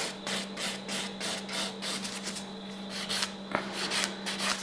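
Hand nail file rasping over the built-up tip of an artificial nail in quick back-and-forth strokes, several a second, filing down a small bump while shaping a square nail; the strokes thin out in the second half. A steady low hum runs underneath.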